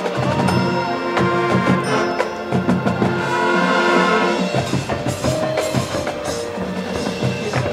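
High school marching band playing its halftime field show: wind chords over drumline and front-ensemble percussion, growing louder about a second in and easing off after about four seconds.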